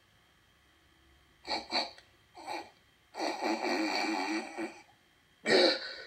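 Bear, the costumed puppet character, sniffing hard through a clogged nose, heard from a TV speaker: a few short sniffs, then a longer wavering, strained snuffle about three seconds in, and a louder burst near the end. He is trying to smell but his nose is stuffed up.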